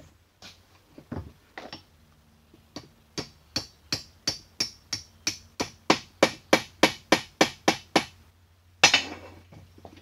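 Claw hammer tapping a metal lathe part into place: a long run of quick, even, light strikes, about three a second, then one harder blow near the end.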